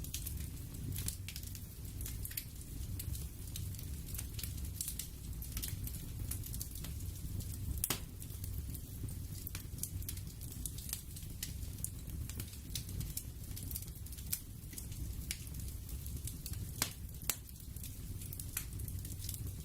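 Ambient background bed: a steady low rumble with irregular sharp crackles and pops scattered through it, a few louder pops standing out.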